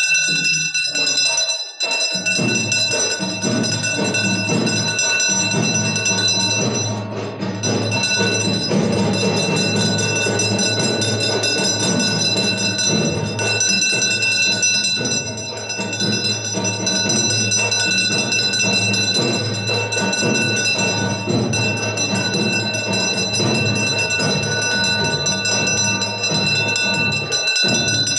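Temple aarti music: bells ringing steadily with drums and percussion beating under them.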